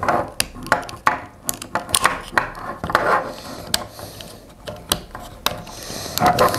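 Plastic parts of a Transformers Studio Series 72 Starscream action figure being handled and turned: a run of irregular sharp clicks and short rubbing scrapes as the joints and panels are moved.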